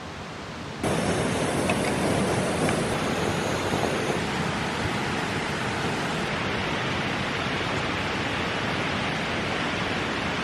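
Mountain stream rushing over rocks and a small cascade: a steady hiss of water that comes in louder about a second in and holds even.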